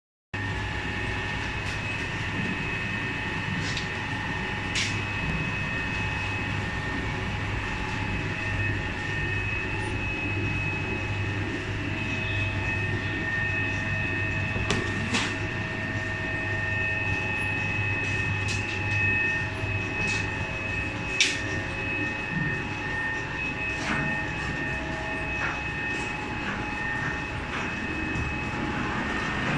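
Fresh noodle production machinery running: a steady low hum with a constant high whine from its motors and drives, and a few sharp clicks and knocks along the way.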